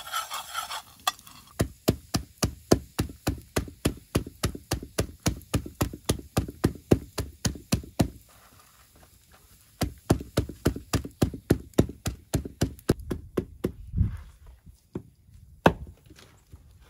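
Roasted coffee beans in a deerskin bag being pounded on a wooden stump to crush them: a run of steady dull knocks, about three or four a second, then a pause of about two seconds and another run, with a few heavier single blows near the end. At the very start the beans rattle and sizzle briefly in a tin pan over the fire.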